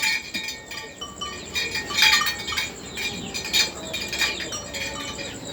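A few short, sharp clinks in a cattle shed, the loudest about two seconds and three and a half seconds in, with small birds chirping.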